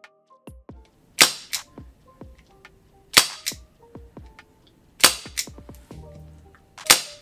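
Webley MkVI gas-powered airsoft revolver firing four single shots about two seconds apart, each a loud sharp crack followed a moment later by a lighter click.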